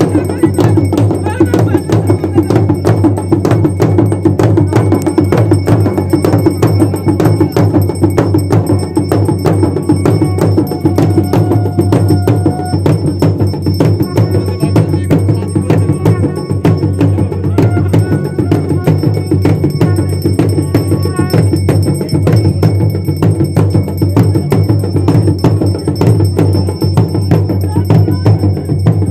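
Traditional Garhwali dhol drumming: a fast, steady run of strokes that does not let up, with a metallic ringing going along with it.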